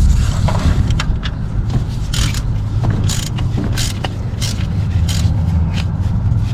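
Hand tools and metal parts working on an alternator mounting: a series of short scrapes and clicks, about one or two a second from a couple of seconds in, over a steady low hum.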